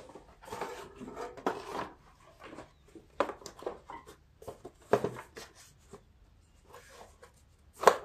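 Plastic engine shroud of a Troy-Bilt riding mower being handled and pressed into place by hand: scattered rustling and knocks, with a sharp knock about five seconds in and the loudest one near the end.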